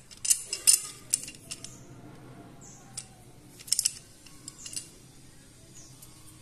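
Steel two-wheel folding-door top hanger and its hinge clinking and rattling as they are handled and turned over: a cluster of sharp metal clicks in the first second and a half, a single click about three seconds in, and another quick cluster a little later.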